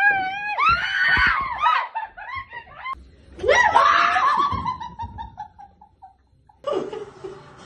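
Women screaming in fright and laughing in high-pitched shrieks. A second bout starts about three seconds in, falls in pitch and breaks into laughter that trails off.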